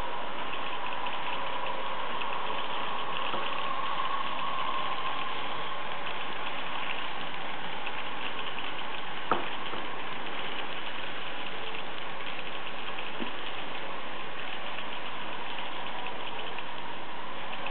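Märklin H0 model trains running on the layout track: a steady hum with fast, even ticking of wheels over the rails. A single sharp click about nine seconds in.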